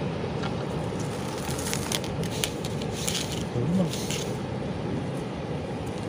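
Steady rushing roar of heavy surf. Scattered small clicks and rustles come through it in the middle as a fishing line is paid out by hand.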